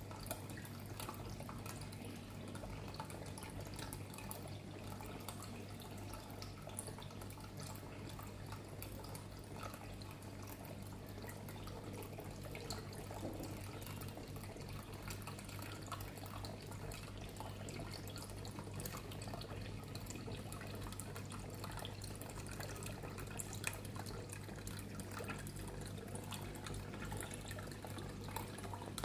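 Indoor tabletop water fountain trickling and dripping steadily, with a steady low hum underneath.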